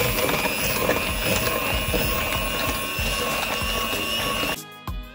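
Electric hand mixer running, its twin beaters whipping double cream and sugar in a glass bowl, with a steady motor whine over the churning. It stops abruptly near the end and background guitar music takes over.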